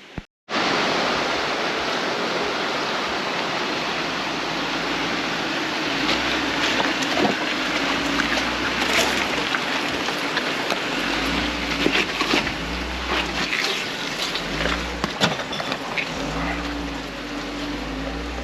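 Steady rushing water noise with scattered small clicks, like a creek. Background music with a low bass line moving in steps comes in about ten seconds in.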